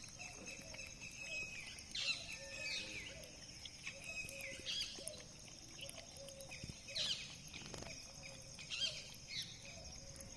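Small birds chirping in short, scattered calls every second or so, over a steady high-pitched hiss.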